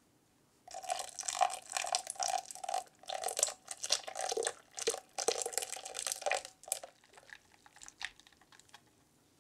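Wire whisk beating egg yolks and sugar in a glass bowl, the wires clinking rapidly against the glass as the liquid sloshes, with tea-infused cream being poured in to make crème brûlée custard. The whisking starts about a second in and stops at about seven seconds, leaving a few faint taps.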